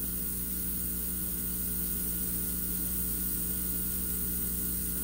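Steady electrical hum with a faint hiss.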